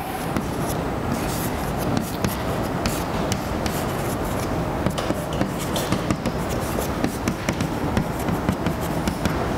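Chalk writing on a blackboard: continuous scratching as the chalk drags across the board, broken by many short sharp taps as it strikes the surface.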